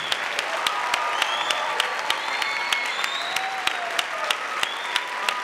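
Audience applauding after the final chord of a stage musical's act finale, with sharp individual claps standing out and a few whoops or whistles held over the top.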